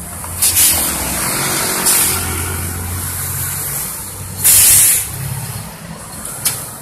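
Heavy vehicle's engine running low, with short hisses of air-brake release; the longest and loudest hiss comes about four and a half seconds in.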